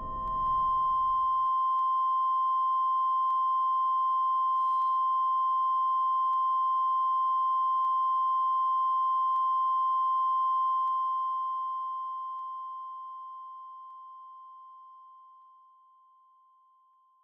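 A single steady high-pitched electronic tone. It holds level for about ten seconds, then slowly fades away, with faint ticks about every second and a half beneath it.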